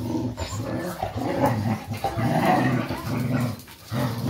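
Dogs growling as they scuffle in a rough play fight: a run of low growls in short spells with brief breaks between them.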